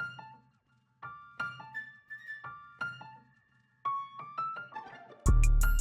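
Background music: short phrases of struck piano-like keyboard notes with brief pauses, then a louder beat with heavy bass and drums kicks in about five seconds in.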